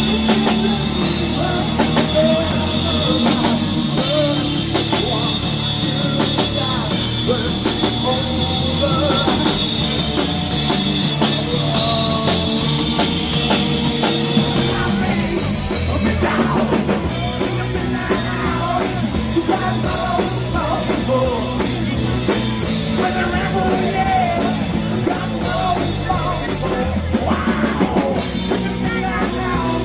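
Rock band playing loud, driving rock music with a drum kit and singing.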